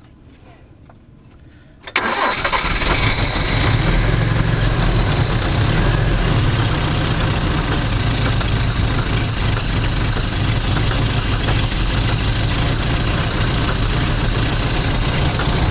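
Old Toyota Hilux's carburetted petrol engine, choke on, catching about two seconds in and then running steadily at idle.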